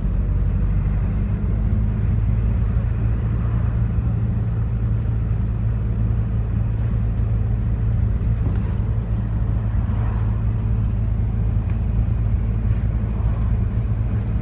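Ataman city bus driving between stops, heard from inside the passenger cabin: a steady low diesel engine hum with road rumble.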